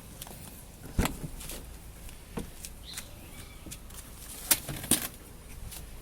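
A few sharp clicks and knocks, one about a second in and the loudest two close together near the end.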